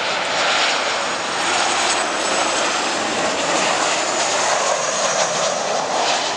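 A Boeing 737 airliner's twin jet engines passing low on final approach to land: a steady, continuous jet noise that holds its level throughout.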